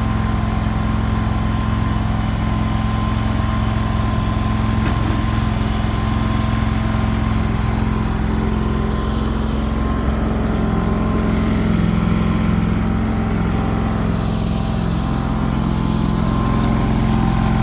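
Small engine running steadily at idle, a constant low drone.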